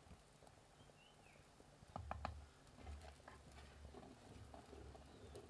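Near silence with faint clicks and knocks of a ladle stirring thick curry in a cooking pot, the sharpest couple about two seconds in.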